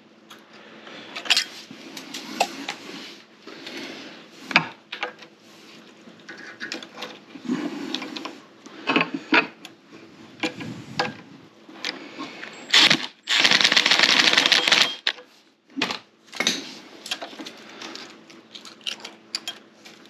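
Hand tools clicking and clinking against the valve train of a Honda EU3000i generator engine as the rocker-arm valve lash is set with a feeler gauge and wrench. Irregular sharp metal clicks come in short clusters, with a louder two-second run of rapid clicking a little past the middle.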